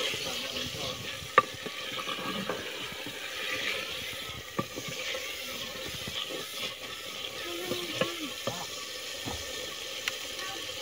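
Curry sizzling and bubbling steadily in a clay pot while a wooden spatula stirs it. A few sharp knocks come from the spatula striking the pot, the loudest about a second and a half in.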